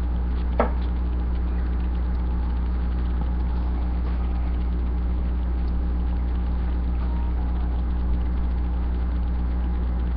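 Steady low hum with a buzz, unchanging in level, with one short click about half a second in.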